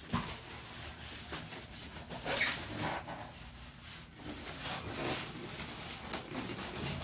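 Unpacking noise: plastic wrap rustling and polystyrene foam packing creaking and scraping as it is handled and lifted out, in a run of irregular rustles that is loudest about two and a half seconds in.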